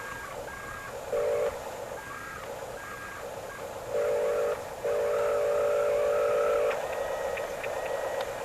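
Electronic sound effects from an RC toy construction machine's speaker: a steady buzzing hum with a harsher tone switched on three times, briefly twice and then for nearly two seconds.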